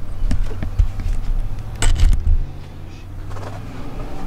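Scattered metal clicks and knocks, loudest about two seconds in, as a clutch master cylinder and its steel backing plate are wiggled against the firewall studs and a nut is tried for tightening, over a steady low hum.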